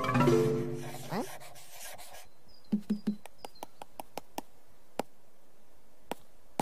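Cartoon score ends in the first second with a few held notes and a short rising glide. Then a quick run of light clicks, about five a second for some two seconds, with a few faint chirp-like blips, and later two lone clicks.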